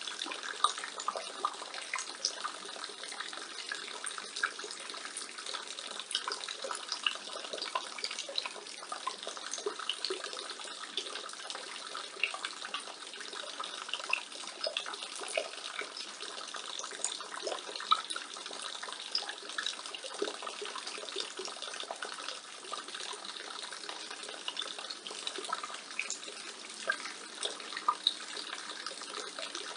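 Rainwater pouring and splashing steadily from a roof gutter, with many small irregular drips and splats through the constant trickle.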